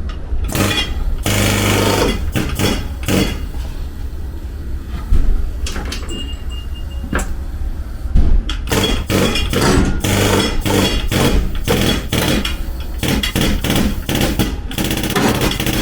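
Panel-beating hammer striking the dented steel body panel of a Toyota Sienta: many sharp, irregular metal knocks that come thickest in the second half, over a steady low hum.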